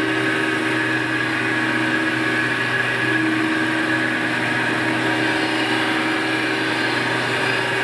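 Grinding machine running, its wheel taking a rough first pass along a machine-tool table with coolant flowing: a steady hum and whine with grinding noise.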